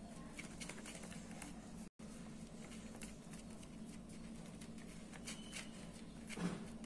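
Faint crinkling of an oiled plastic sheet and soft patting as fingers press a ball of rice-flour thattai dough flat, over a steady low hum. The sound drops out for an instant about two seconds in.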